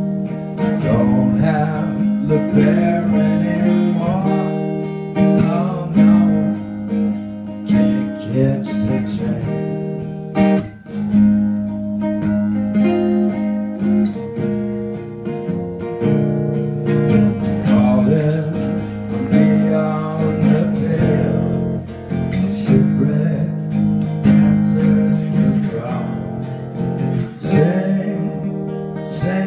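Live music: a guitar playing slow, sustained chords that change every few seconds, with a man singing at times.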